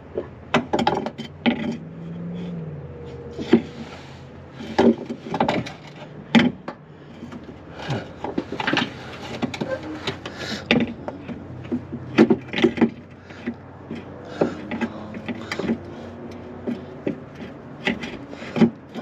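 Irregular metal knocks, clunks and scraping as a shock absorber is worked up into the strut mount of a 2009 Ford Focus, its top studs being lined up with the mounting holes.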